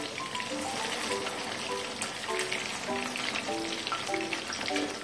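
Batter-coated chicken lollipops deep-frying in hot oil in a kadai, a steady dense sizzle and crackle. Light background music of short, even notes plays under it.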